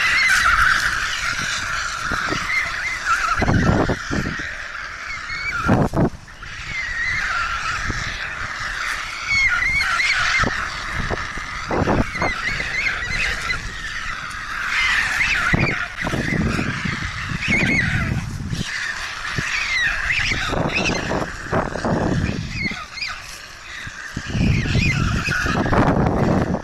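White stork chicks begging on the nest, a continuous clamour of chattering, honking calls. Irregular low rumbling bumps come and go under the calls.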